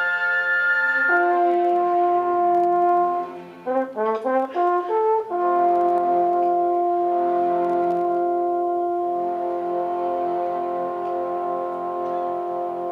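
A symphony orchestra playing: sustained chords, a quick run of short notes about four seconds in, then a long held chord that slowly gets quieter.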